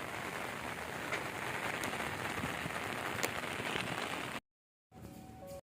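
Steady rain falling, with a few sharp drop taps. It cuts off suddenly about four seconds in, followed by a brief silence and a faint steady tone near the end.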